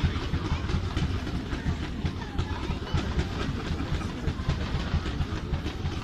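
Fireworks going off in quick succession: a dense, continuous run of pops and crackles over a low rumble of bursts.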